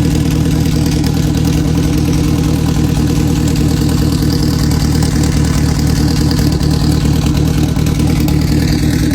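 Chevrolet Chevette's four-cylinder engine idling steadily, with a loud rumbling exhaust note.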